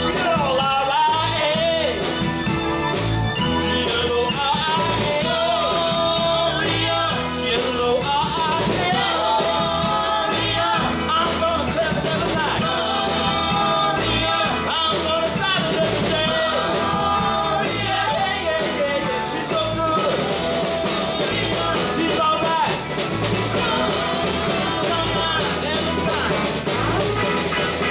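Live band playing a rock song on electric guitars, electric bass, keyboard and drum kit, with a steady beat and a voice singing over it.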